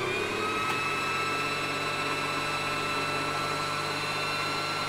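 Silvercrest sewing machine's electric motor running at a steady speed, spinning the bobbin winder to wind thread onto the bobbin: a steady whine over a low hum.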